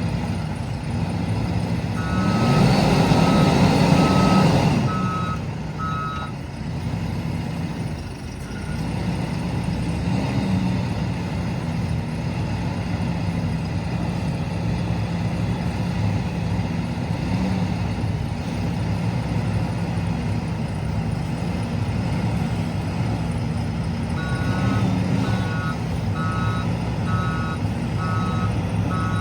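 JCB loader's diesel engine running steadily, revving hard for a few seconds near the start as it works. A reversing alarm beeps in an even rhythm, once near the start and again near the end.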